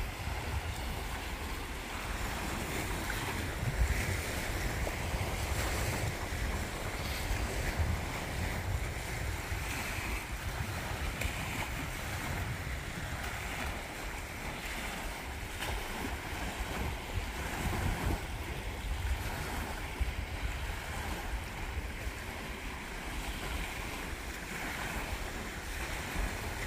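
Wind buffeting the microphone in a steady low rumble, over wind-driven waves lapping at a reservoir shoreline.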